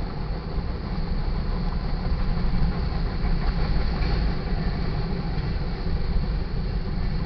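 Westbound sand train's freight cars rolling through a grade crossing: a steady, loud low rumble of wheels on rail.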